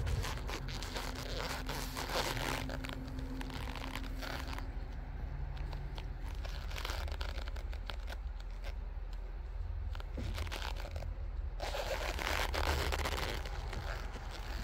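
Rustling, crackling handling noise from a handheld phone camera being moved around, coming in bursts over a steady low rumble.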